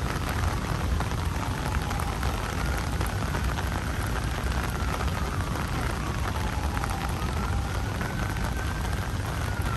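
Steady rain falling on wet pavement, with scattered drop taps over a low rumble. A faint tone slowly rises and falls in the background.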